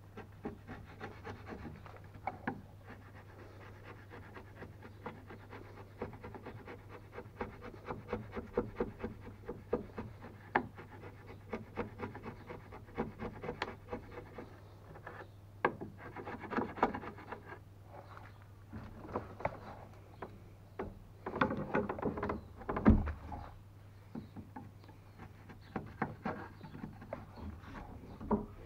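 Wood chisel pushed by hand, paring and scraping out a notch in a wooden stringer: a steady run of short scrapes and small clicks as shavings come away. A louder stretch of scraping comes about three quarters of the way through.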